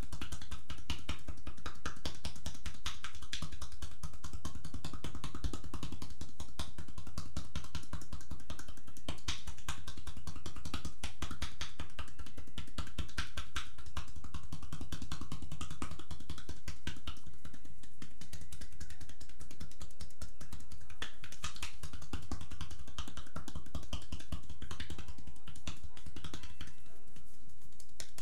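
Cupped hands striking rapidly on a person's bare upper back in percussive massage (cupping tapotement), making a fast, even run of taps.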